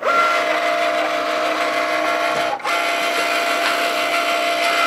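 Cricut Maker cutting machine's motors running with a steady whine as it feeds the cutting mat in and moves the tool carriage, at the start of its first cut. It starts abruptly and pauses briefly about halfway through before going on.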